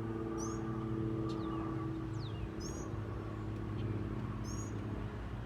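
Small birds chirping: short high chirps about every two seconds with thin falling whistles between them, over a steady low hum.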